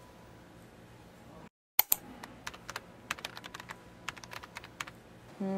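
Computer keyboard typing: an irregular run of quick key clicks starting about two seconds in, the first click the sharpest.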